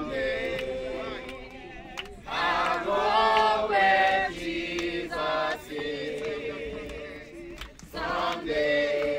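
Group of mourners singing together, men's and women's voices holding long notes between shorter phrases.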